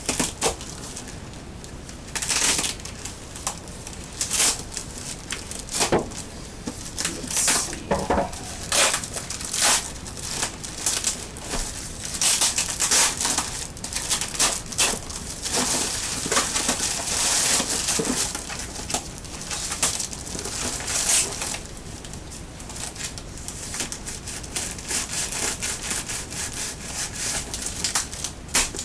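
A cardboard shipping box being cut open with a knife and unpacked: irregular scraping, tearing and crinkling of cardboard and packing material, in uneven bursts.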